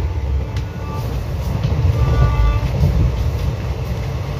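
Passenger train running along the track, heard from inside the coach as a steady low rumble.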